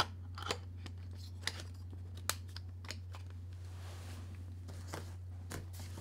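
Small plastic camera gear being handled, a flash battery and flash set down while other gear is reached for: scattered sharp clicks and taps, the sharpest in the first two and a half seconds, then soft rustling. A steady low hum runs underneath.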